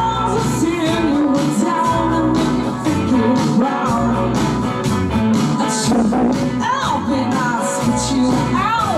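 Live rock band playing: a woman singing lead over electric guitars and drums, with regular drum hits through the song.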